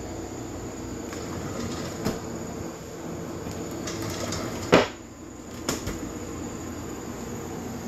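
A counter drawer being opened and handled, with a few light clicks and one sharp knock just under five seconds in, over a steady mechanical hum.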